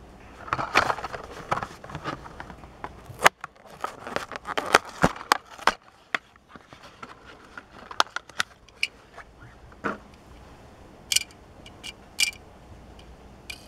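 Plastic blister packaging of a Hot Wheels die-cast car crinkling and crackling as it is torn open by hand, with sharp snaps and clicks. The clicks thin out in the second half as the car comes free.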